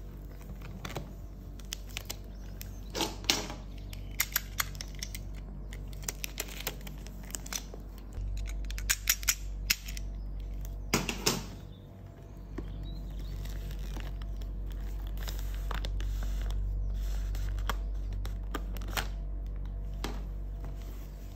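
Clear plastic shrink-wrap on a perfume box being slit with a snap-off utility knife and peeled away: scattered crinkles, scrapes and sharp clicks over a steady low hum.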